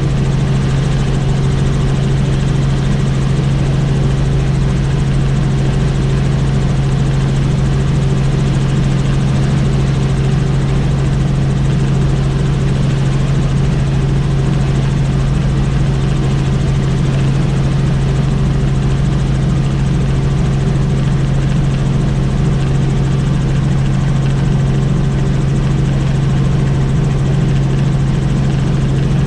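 Helicopter in cruising flight: steady, loud engine and rotor noise with a constant low hum that does not change.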